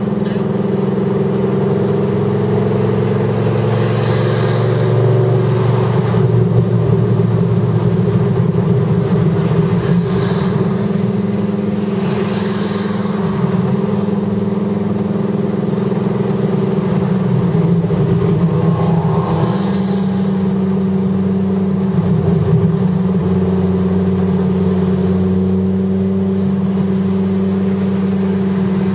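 Dodge Viper GTS's V10 engine heard from inside the cabin, running steadily at a moderate, even pitch while cruising, with only small rises and dips in pitch.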